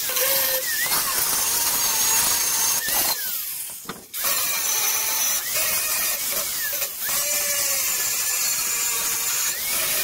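Angle grinder fitted with a hard grinding wheel grinding leftover chain-link steel down smooth, its pitch wavering as it is pressed into the metal. About three seconds in it winds down with a falling pitch, then starts up again and runs on.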